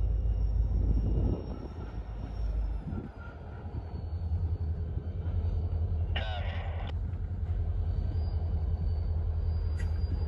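Freight train of covered hoppers and tank cars rolling slowly past, a steady low rumble of wheels on rail, with a brief higher-pitched sound about six seconds in.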